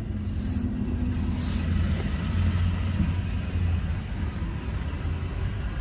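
Ford F250 Super Duty's 6.2 L gasoline V8 idling steadily, a continuous low hum.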